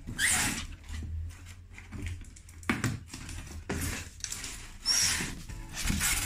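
Cardboard packaging scraping and rustling in about five short bursts as a printed cardboard sleeve is slid off a boxed laminating machine and the carton flaps are opened.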